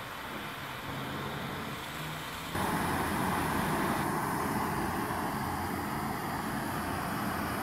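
Two MAPP gas torches running steadily, their flames hissing into a small crucible melting furnace. The hiss steps up suddenly and becomes louder about two and a half seconds in.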